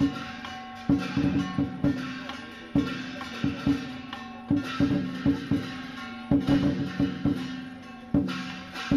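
Live Chinese lion dance percussion: a large drum struck in uneven clusters of strokes with short pauses between them, with cymbals ringing over it.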